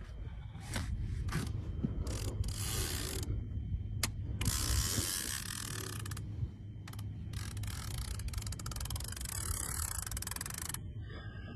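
Fishing reel being worked by hand: spans of rapid ratcheting clicks from its gears and clicker, with a few sharp single clicks between them, over a steady low rumble.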